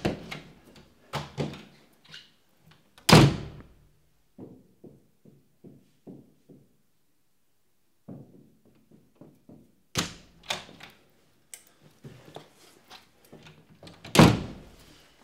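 Two heavy thunks, like a door or wardrobe door being shut, about three seconds in and again near the end, the loudest sounds here. Between them come a quick run of about eight light knocks, some four a second, and a sharper knock around ten seconds.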